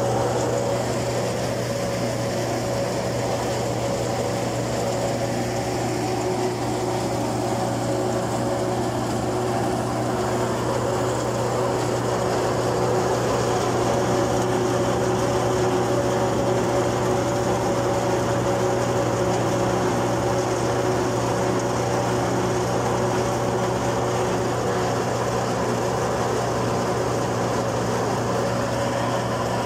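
Tractor-powered peanut thresher running steadily, a constant mechanical drone with a few held humming tones from the engine and the spinning drum.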